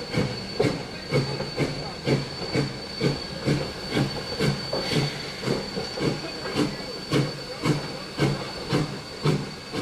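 Sierra Railway No. 3, a 4-6-0 ten-wheeler steam locomotive, running light on its own after being uncoupled from its train. It chuffs steadily at about two exhaust beats a second over a steady high-pitched hiss.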